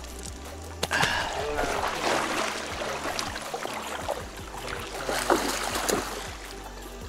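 Water splashing and churning in irregular bursts as a hooked fish thrashes at the surface, starting suddenly about a second in and easing near the end.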